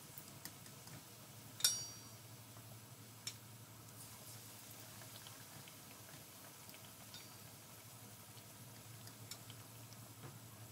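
Battered eggplant slices frying in hot oil in a pan: a faint, steady sizzle with scattered small crackles. A sharp click with a short ring sounds about two seconds in.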